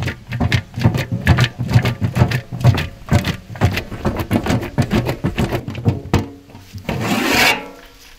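Fried chicken wings tumbling in a large lidded metal pot shaken by hand: rapid rattling and knocking of the pieces and the lid against the pot, several knocks a second, stopping about six seconds in. A longer rasping scrape follows near the end.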